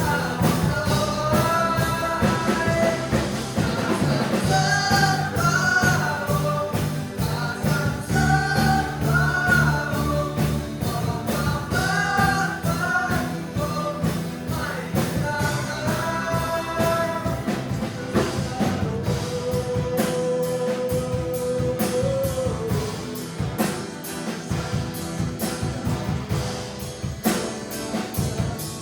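Worship band playing a contemporary Christian song with singing over drums, bass and guitar, with one long held note about two thirds of the way through.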